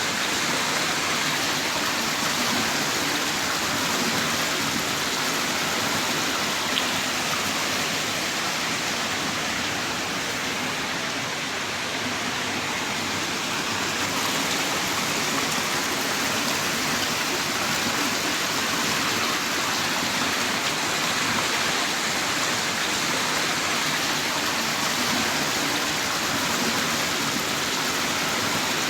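Heavy rain pouring down steadily in a dense, even hiss, with a faint tick of a single drop about seven seconds in.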